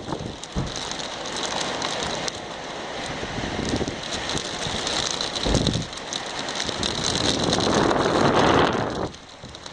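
Gusting wind buffeting the microphone over a steady hiss of rain, swelling and easing, with brief low rumbles from the gusts.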